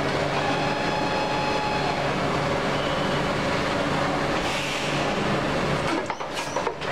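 Plastic injection moulding machine running a cap mould, a steady mechanical drone with a hum. About four and a half seconds in there is a short hiss, then a few clicks as the mould opens near the end.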